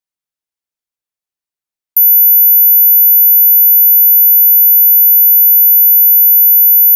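Near silence, then about two seconds in a loud, very high-pitched steady electronic tone starts abruptly and holds at one pitch.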